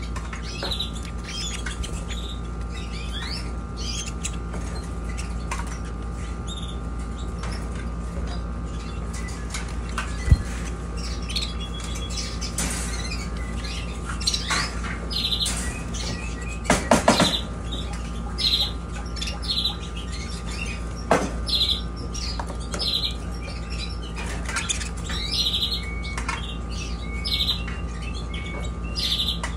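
Canaries chirping: short high calls repeated through, coming more often from about halfway, with a few sharp clicks and wing flutters in the middle, over a steady low hum.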